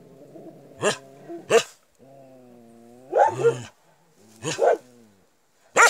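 Puppies playing, making low drawn-out growls broken by about five short, sharp yaps.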